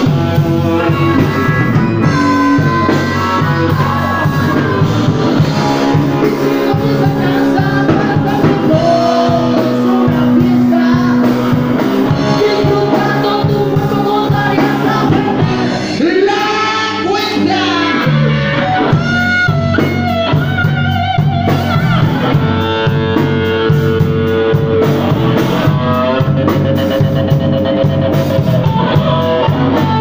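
Live blues-rock band playing loudly: electric guitar, bass guitar and drum kit, with a man singing into a microphone.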